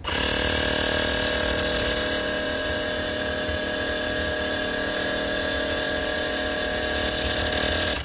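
Windek RCP-D23A 12 V portable tyre compressor running steadily as it inflates a car tyre, sped up fourfold. It cuts off suddenly at the end when its automatic shut-off stops it at the set pressure of about 2 bar.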